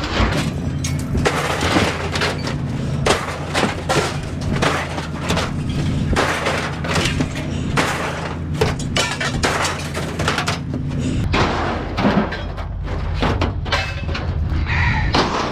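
Steel scrap, grocery-store shelving, clanging and crashing as it is thrown off a truck, with many irregular metal impacts over a steady engine hum.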